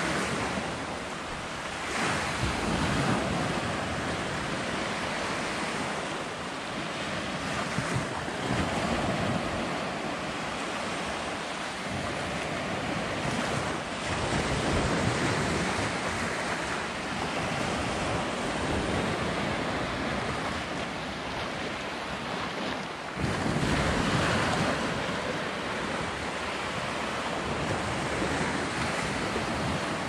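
Small Mediterranean waves breaking and washing up a sandy shore, the surf swelling and easing every few seconds, with wind buffeting the microphone.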